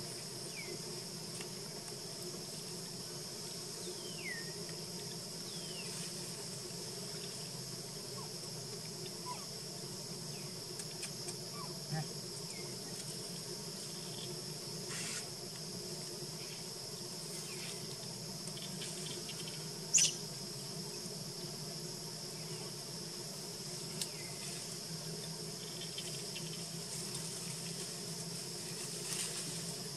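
Steady outdoor chorus of insects, a continuous high buzzing drone, with a few short falling chirps early on and one sharp click about two-thirds of the way through.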